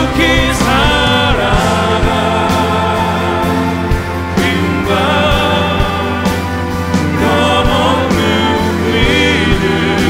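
Live contemporary worship music: several singers sing over a band of acoustic guitar, violin and keyboard, with a steady beat of low drum hits.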